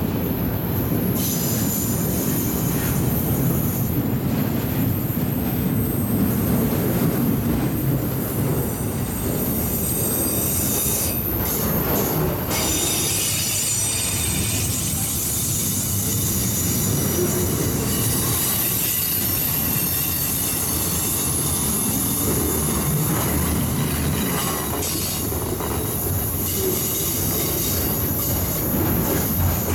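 Long freight train of enclosed autorack cars rolling steadily past, the wheels rumbling on the rails with a high-pitched wheel squeal that comes and goes.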